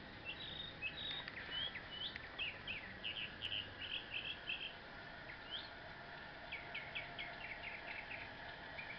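A songbird singing: strings of short, quick, repeated chirps in two runs of song, the second starting about halfway through, over a steady faint background hiss.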